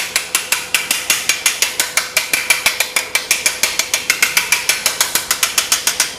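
Rapid, even metallic tapping on a gas deck oven's aluminized burner tube with a small hand tool, about six strikes a second. The tapping knocks loose debris that can block the burner and spoil its flame.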